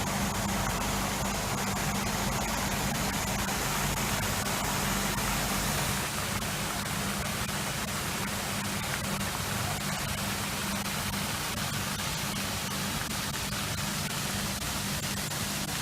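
Steady, unbroken rush of falling water from the aviary's fountain-waterfall, with a low steady hum beneath it; the deepest rumble drops away about six seconds in.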